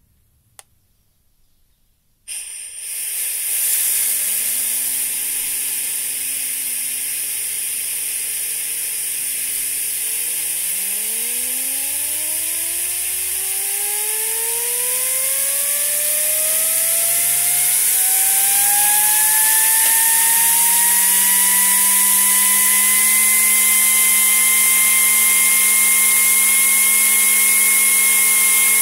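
Homemade compressed-air rotary engine, built from copper pipe and electric-motor parts and run at 40 psi: a loud hiss of air starts about two seconds in after a single click, and the engine's whine climbs steadily in pitch as it spins up, levelling off near the end at close to 13,000 rpm.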